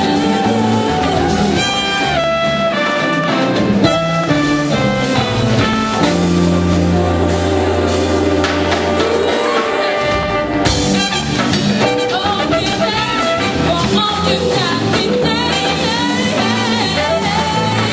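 Live jazz band playing: horns over drum kit and bass, with a long low note held for a few seconds in the middle.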